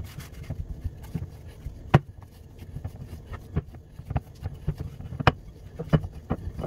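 Dough being kneaded by hand in a glass bowl on a wooden board: irregular thuds and knocks as the stiff dough is pushed and turned and the bowl shifts on the board, with rubbing and scraping in between. The sharpest knock comes about two seconds in.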